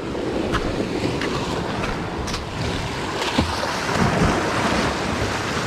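Sea waves washing and breaking against rocks, with wind buffeting the microphone and a few faint clicks.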